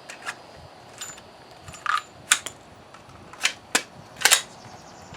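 Sharp metallic clicks and clacks from a mud-fouled 10mm Glock 40 pistol being worked by hand, about eight in all, spaced irregularly: the sounds of clearing a malfunction after the dirt stopped it from feeding.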